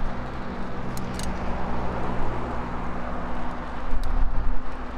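Street traffic heard from a moving bicycle: a steady engine hum from a nearby vehicle under a continuous rushing noise, with a few light clicks and a low rumble about four seconds in.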